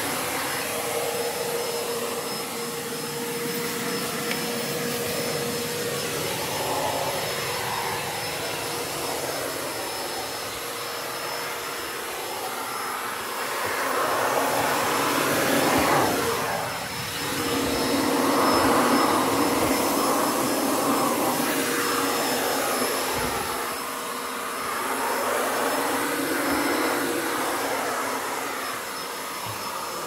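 AEG Hygienic 5000 cordless stick vacuum running, its brush nozzle pushed along a hard floor and into edges: a steady motor whine under the suction noise, which swells louder for a few seconds around the middle as the nozzle moves.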